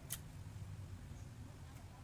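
A person eating sun-dried food: one sharp crunchy click just after the start, then only faint soft chewing sounds over a low steady hum.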